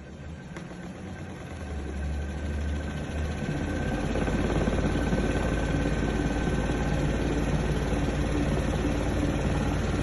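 High-frequency chest wall oscillation airway clearance system running: its air generator first inflates the vest with a rising rush of air, then about three and a half seconds in the oscillation starts, a steady, rapidly pulsing low hum of the vest being vibrated.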